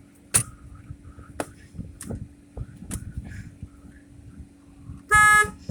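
Scattered sharp clicks and knocks of hands and parts being worked around a car's steering column, then, about five seconds in, a loud, steady pitched tone lasting under half a second, over a steady low hum.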